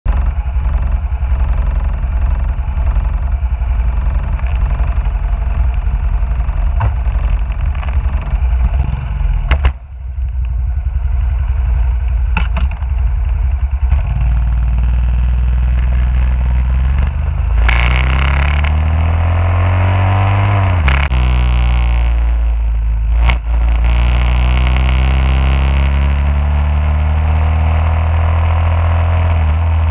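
Motorcycle engine idling steadily, then revving and pulling away, its pitch climbing and dropping back at two gear changes a couple of seconds apart before it settles at a steady cruising note. A brief knock comes near the ten-second mark.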